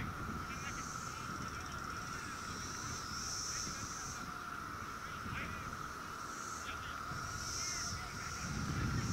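Outdoor background: a steady high-pitched drone with a higher hiss that swells every second or two, small chirps, and low wind rumble.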